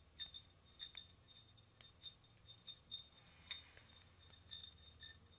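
Faint, scattered light clicks and clinks of fingers handling a glass votive candle holder, over a low room hum.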